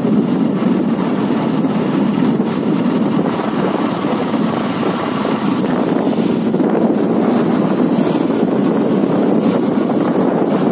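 Steady wind rush over the microphone, mixed with the engine and road noise of a moving motorcycle.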